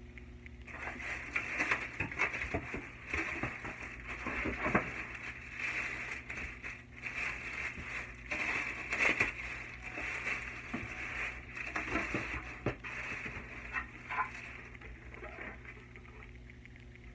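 Clear plastic bag crinkling and rustling as a boxed speaker is handled and pulled out of its wrapping. It starts about a second in and dies away near the end.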